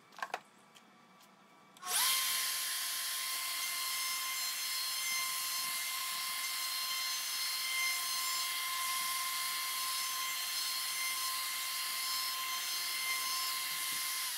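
A DeWalt router clamped upside down under a table saw top switches on about two seconds in and runs at full speed with a steady high whine. It is rounding over the edges of a plywood handhold slot.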